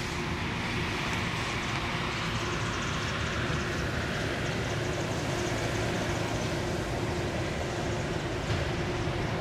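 Steady outdoor background noise: a low rumble with a hiss over it and a faint steady hum, with one brief tick near the end.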